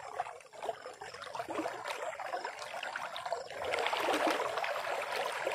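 Shallow river water trickling and splashing, full of small clicks and splashes, growing louder about three and a half seconds in.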